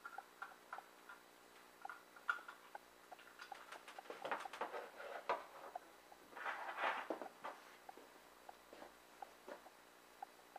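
Handling noise of a VGA cable and a small plastic converter box: light clicks of the connector and plug, then a burst of rustling and clattering as the box and cables are set down on a table, about four to seven and a half seconds in. Faint ticking about twice a second runs underneath.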